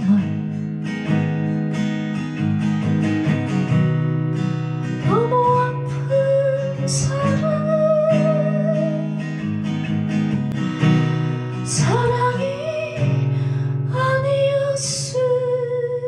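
Acoustic guitar strummed steadily, with a woman's voice singing long, wavering wordless notes over it.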